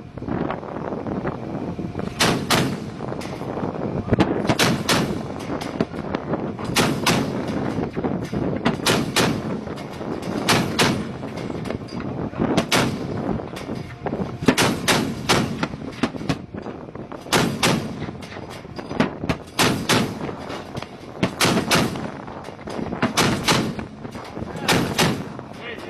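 Gunfire at sea: quick groups of two or three shots about every two seconds, with wind noise between the shots.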